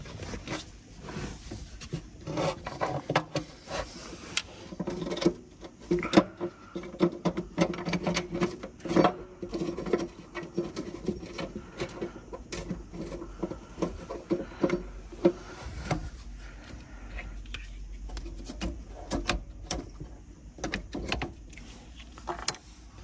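Hands and a screwdriver working at a car battery's hold-down clamp in its metal floor tray: irregular clicks, knocks and scraping of plastic and metal.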